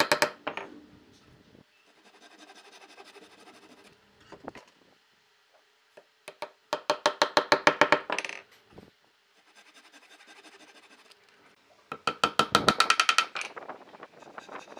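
Hammer tapping wooden dowels into drilled holes in pine, in three quick bursts of about ten taps a second, with softer rasping between the bursts.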